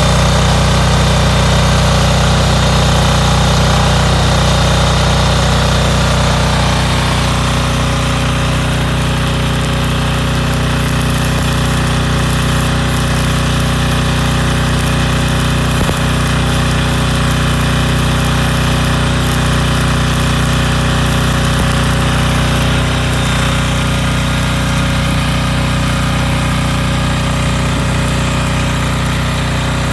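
Stick (MMA) welding set running: a steady low hum with a constant hiss over it, the hiss changing slightly about seven seconds in.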